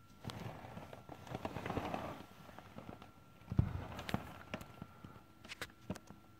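Rustling and clicking handling noise as the camera is moved, with a dull thump about three and a half seconds in and a few sharp clicks after it.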